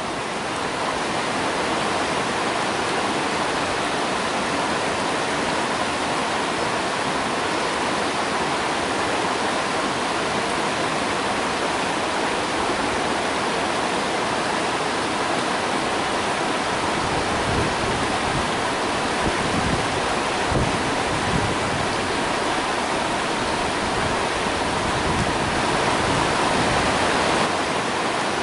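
Shallow rocky stream rushing and babbling over boulders, a steady even flow. A few low rumbles come through in the second half.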